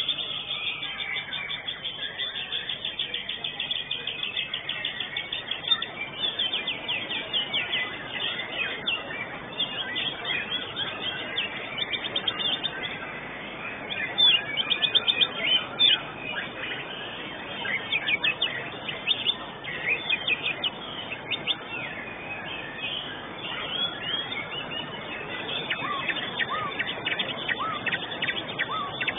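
White-rumped shama (murai batu) singing in a contest cage: fast runs of repeated chirps and whistled glides, with a few louder phrases about halfway through.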